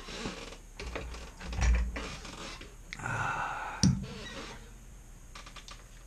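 Clicks and knocks of small metal lock parts being handled as a lock is taken apart. A dull thump comes a little under two seconds in, a brief rustling about three seconds in, and a sharp click just before four seconds.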